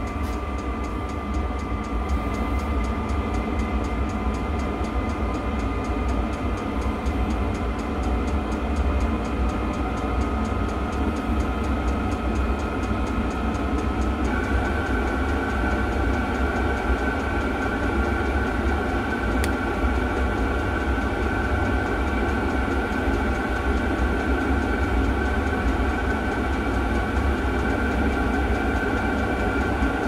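Chinese diesel night heater running: a steady low combustion rumble under the whine of its blower fan, with the fuel pump ticking. The fan's whine creeps up in pitch and then steps up suddenly about halfway through.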